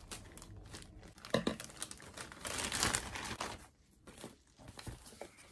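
Plastic postal mailing bag crinkling and rustling as it is torn open and a cardboard box is slid out of it, with the densest rustling around the middle and a few lighter crackles near the end.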